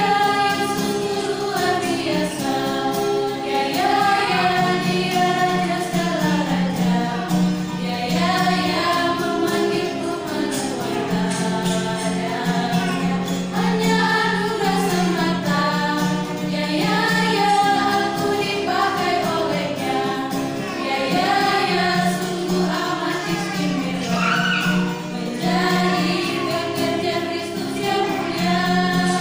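Small group of women singing a hymn together, accompanied by an acoustic guitar.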